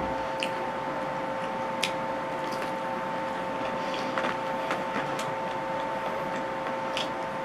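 Close-up eating sounds: scattered sharp crunches and clicks from biting and chewing crispy fried food, over a steady hum.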